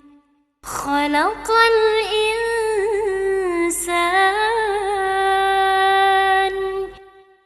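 A woman's voice singing an unaccompanied Arabic vocal line, its pitch wavering and sliding in ornaments. It starts after a brief silence about half a second in and stops shortly before the end.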